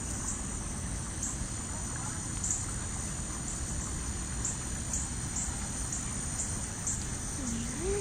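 Steady high-pitched chorus of crickets, with short chirps repeating roughly once a second, over a low steady rumble of outdoor noise.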